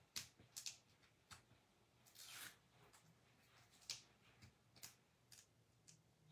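Faint crafting sounds of double-sided foam tape being laid in strips on black cardstock: light clicks and taps, with a short rustling rasp of tape about two seconds in.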